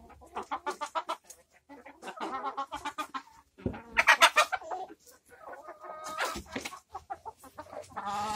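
Flock of domestic hens clucking in repeated short runs of calls, with one louder call about four seconds in.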